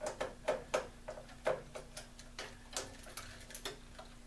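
Screwdriver clicking and ticking as screws are backed out of a circuit board inside a Kenwood TS-940 radio: a run of sharp, irregular clicks, a few each second, over a faint steady hum.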